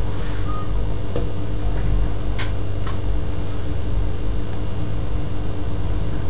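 Steady low electrical hum and background hiss, with a few faint clicks about one, two and a half, and three seconds in.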